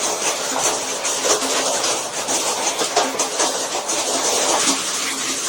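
Hail pelting down: a dense, steady hiss of impacts with many sharp individual hits.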